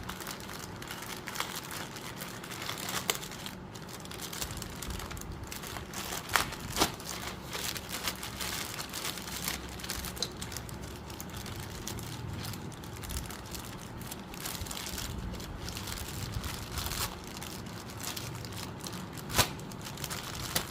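Small parts being handled and fiddled with on a work surface: a steady rustling and crinkling, broken by a few sharp clicks, the loudest near the end.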